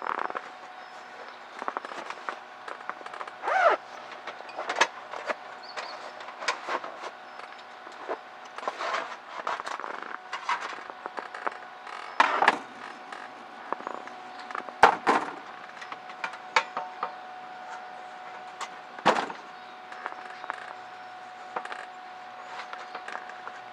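Irregular clicks, knocks and rustles of things being handled, a few louder knocks among them, over a faint steady hum.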